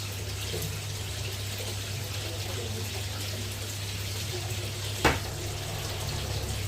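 Water running steadily into a tarpaulin fish pond over a steady low hum, with one sharp click about five seconds in.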